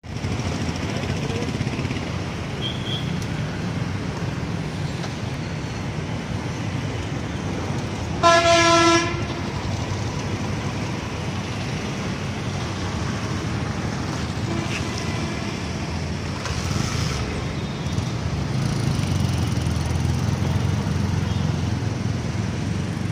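Steady road traffic noise, with a vehicle horn honking once for under a second about eight seconds in, the loudest sound.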